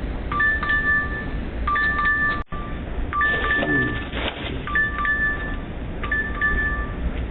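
Electronic two-note doorbell chime ringing over and over, about once every second and a half, heard through a doorbell camera's microphone. Partway through, a cry or voice slides down in pitch.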